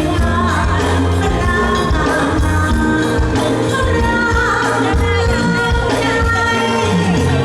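A live performance of a Thai luk thung song: a singer's melodic vocal line over a full band with steady bass and regular drum beats.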